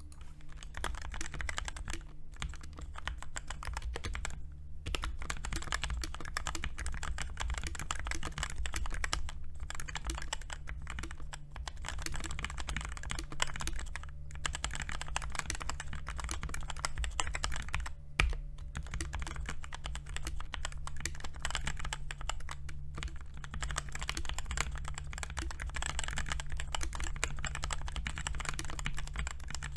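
Fast continuous typing on a modded Redragon Kumara K552 mechanical keyboard with Krytox-lubed Outemu Red linear switches, foam under the plate and lubed, taped stabilizers. The keys clack in a dense stream, broken by a few short pauses, over a steady low hum.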